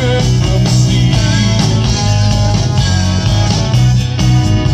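Live rock band playing an instrumental passage with no vocals: electric and acoustic guitars, bass guitar, keyboard and drum kit, amplified through a PA.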